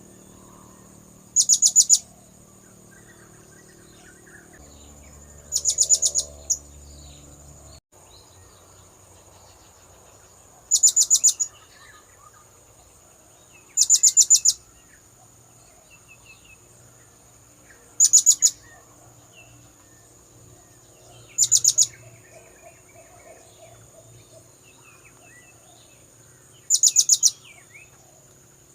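Blue-crowned hanging parrot (serindit) lure call: seven short bursts of rapid, very high-pitched chirps, a few seconds apart, used to draw the birds in.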